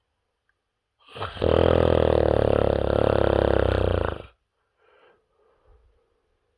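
A person snoring: one loud, rattling snore of about three seconds, followed by a faint breath.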